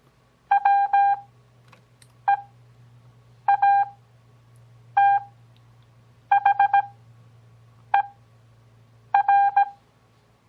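Morse code (CW) practice tones keyed at 17 words-per-minute character speed with wide Farnsworth spacing (6 WPM overall): dits and dahs on one steady mid-pitched tone, seven characters in all, each followed by a pause of about a second.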